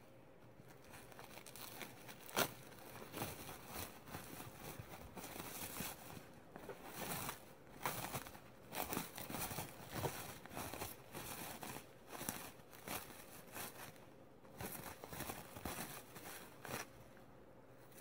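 Bubble wrap handled and unwrapped by hand: irregular crinkling and rustling of plastic, with one sharp click about two seconds in and quieter handling near the end.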